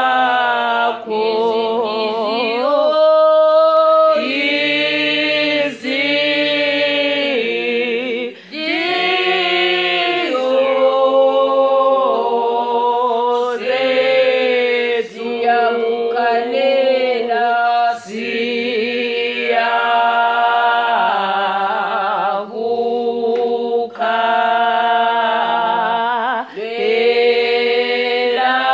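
A church choir singing a hymn a cappella, holding long notes phrase by phrase with short breaths between.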